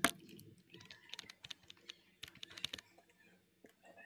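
Typing on a computer keyboard: keys clicking in irregular bursts as digits are entered, with the sharpest click right at the start.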